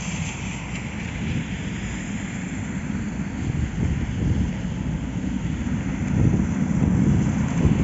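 Cars passing on a wet road, with wind buffeting the microphone. A steady low rumble that grows louder near the end.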